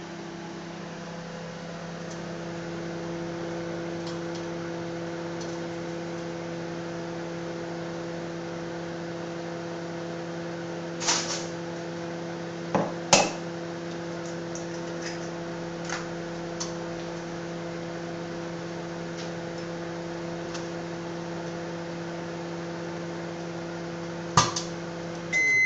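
De'Longhi microwave oven running with a steady hum while it heats an egg in a cup. A few sharp clicks break in, and the hum stops just before the end as the timer runs out.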